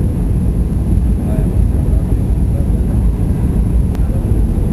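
Airbus A320 cabin noise during the descent to land: a steady, loud, low rumble of the engines and airflow heard through the fuselage.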